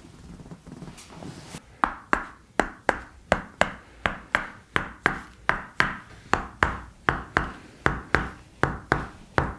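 Hands striking the body in rhythmic percussive massage: sharp tapping strikes at about three a second, starting about two seconds in.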